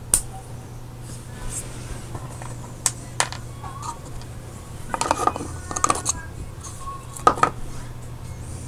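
Scattered small clicks and taps of fuel-injector parts being handled: plastic caps, spacers and O-rings pressed onto a Bosch EV1 injector and picked up from and set down on a cutting mat. One click at the start, two near the middle, a quick cluster a little past halfway and two more near the end.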